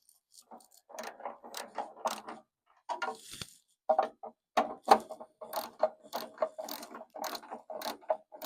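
Ratchet wrench clicking in quick runs of strokes, several clicks a second with brief pauses between runs, as it turns the 10 mm park light screws.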